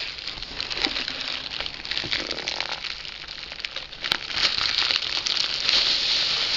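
Plastic parcel wrapping being handled and pulled open by hand, a dense crinkling and crackling that grows louder in the second half, with one sharp click about four seconds in.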